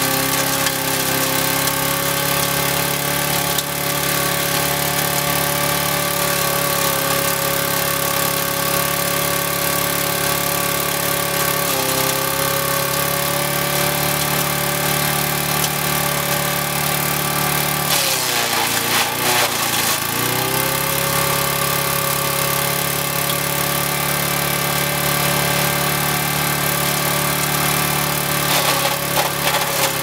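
Lawn mower engine running at speed while branches are pushed down a funnel into its spinning blade and chipped, giving a steady noise of wood shredding over the engine. About 18 seconds in the engine bogs under the load, its pitch dropping for about two seconds before it picks back up.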